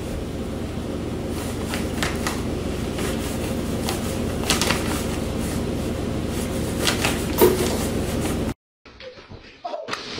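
Plastic bag crinkling in short crackles as a cat tugs it across a countertop, over a steady low hum. It cuts off abruptly about eight and a half seconds in.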